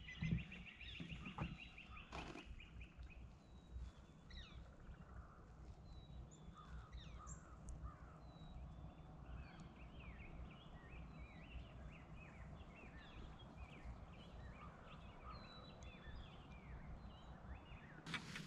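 Faint songbirds chirping and singing, many short calls overlapping, with a fast buzzy trill in the first few seconds. A low steady rumble runs underneath, and there are a couple of light knocks near the start.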